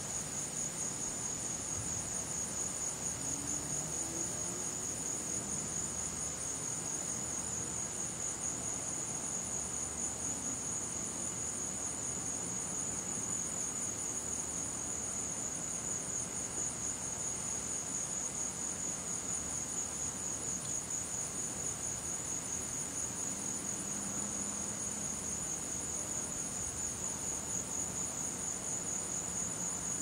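Steady, high-pitched insect chorus: a continuous shrill drone with a fine, fast pulse.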